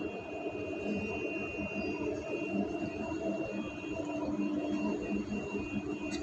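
Steady machine hum with a thin, high, steady whine over it.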